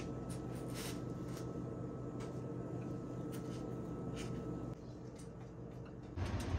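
Light clicks and soft rustles of a hand handling tortilla-wrapped rolls on a glass plate, over a steady low hum. Near the end a louder low rumble sets in.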